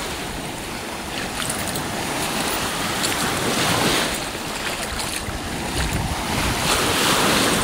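Lake waves washing onto a sandy shore, the rush swelling and easing every few seconds, with wind gusting across the microphone.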